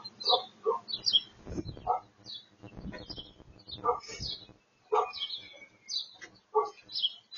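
Birds chirping in short calls, roughly one every second, some with a lower note under the high chirp.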